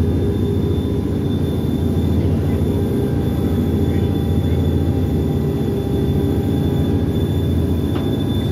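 Pikes Peak cog railway car running uphill, heard from inside the passenger car: a steady low rumble.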